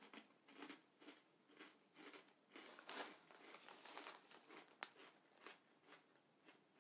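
Faint crunching of ridged double-crunch crisps being chewed, with the plastic crisp packet crinkling as it is handled, the rustle densest about three seconds in. A single sharp tick sounds near five seconds.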